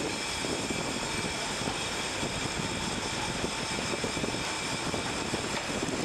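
Steady drone and hiss of workshop machinery running, with a few high, steady whines over it.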